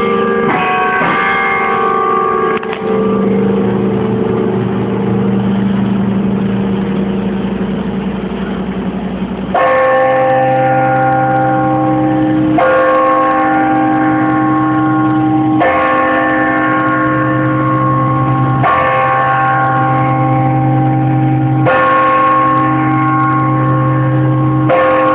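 Carillon bells chiming the hour, heard from inside the bell tower. A few chime notes ring out and die away over several seconds. About ten seconds in, the hour bell starts tolling, a stroke about every three seconds, six in all, each left ringing into the next.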